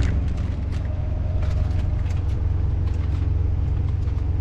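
Heavy truck's diesel engine idling steadily, a constant low rumble with faint light ticks over it.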